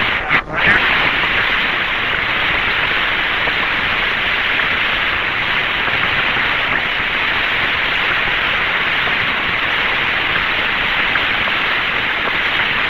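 Steady hiss of static on the Mercury capsule's radio voice channel, with a couple of clicks and a brief dropout at the very start.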